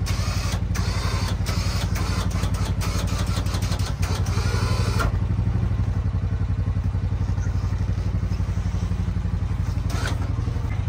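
An engine idling steadily with an even low pulse. A rapid run of sharp clicks over it stops abruptly about five seconds in, and a few more clicks come near the end.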